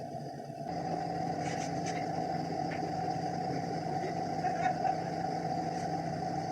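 An engine running steadily at an even speed, with a few faint clicks and knocks on top.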